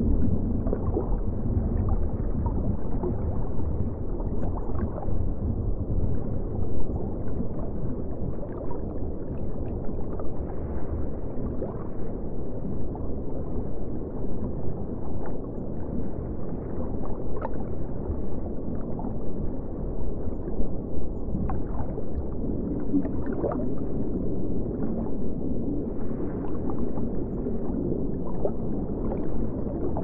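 Deep-sea underwater ambience: a steady low rumble and churn of water, with small irregular flecks of higher sound on top.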